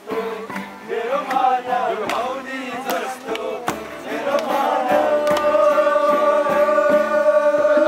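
A group of men singing together to an acoustic guitar, their voices moving for the first few seconds, then holding one long note from about five seconds in.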